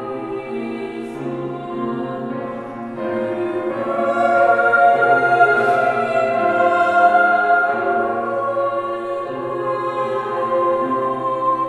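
Upper-voice choir singing held chords with piano accompaniment, the piano carrying the low notes. About three seconds in, the choir swells to a louder climax, then gradually eases off toward the end.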